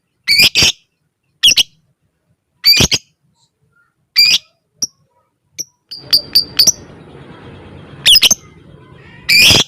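Lovebird giving short, shrill, sharp calls, one every second or so, with a quick run of calls about six seconds in. A faint noisy rustle sits under the calls in the second half.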